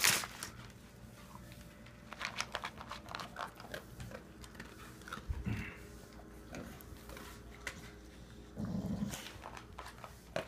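Dogs and puppies crunching dry kibble from a bowl: irregular crisp clicks and crunches, thickest in the first half, with a short low sound near the end.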